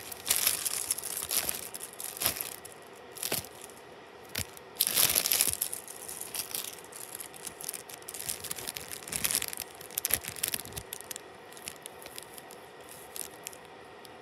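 Clear plastic packaging bag crinkling and rustling as it is handled, in irregular bursts, loudest about five seconds in and thinning out over the last few seconds.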